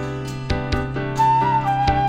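Instrumental background music: repeated plucked notes over a steady low drone, with a high, held melody line coming in about a second in.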